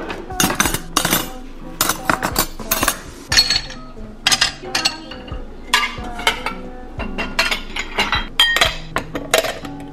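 Dishes and utensils clinking as a dishwasher is unloaded: plates and bowls knocking together and utensils set into a drawer and a utensil holder, in a quick, uneven series of sharp clinks.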